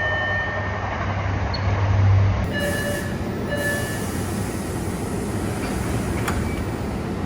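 MBTA Orange Line subway car's exterior door chime: two short tones about a second apart, over the steady rumble of the train at the platform. A single sharp click sounds about six seconds in.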